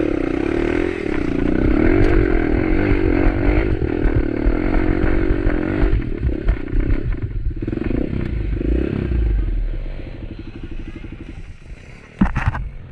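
Motorcycle engine labouring in first gear, its revs rising and falling as it pulls over rough ground, with clattering and scraping beneath it. The engine fades after about ten seconds, and a sharp knock comes near the end.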